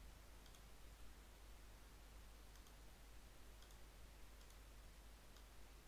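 Faint computer mouse clicks, about five of them spaced roughly a second apart, over a quiet steady background hum.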